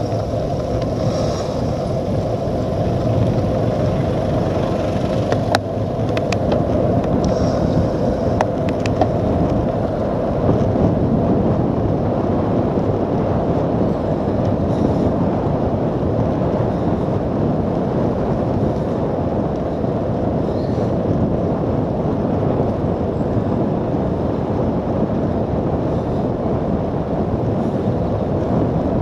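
Steady wind rush and road noise on a bike-mounted action camera's microphone as a cyclocross bike rides along a wet road, with a few sharp clicks between about five and nine seconds in.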